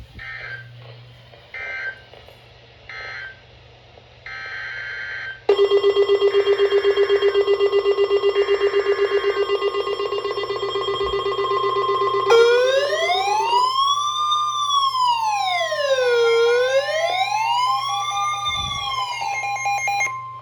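Emergency Alert System data tones: three short screeching bursts of digital end-of-message code close the tornado warning. Then the next alert's header bursts sound under a loud, rapidly pulsing alarm tone, which gives way about halfway through to an electronic siren wailing slowly up and down, about once every four seconds.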